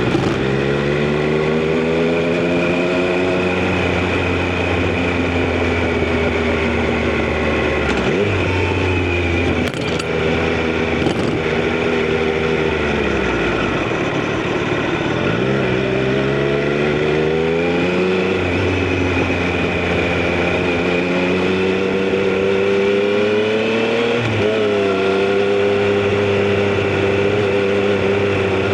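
Triumph Street Triple RS inline three-cylinder engine under way. The engine note climbs as the rider accelerates, then falls back as he eases off, several times over, with a sharp drop in revs about 24 seconds in.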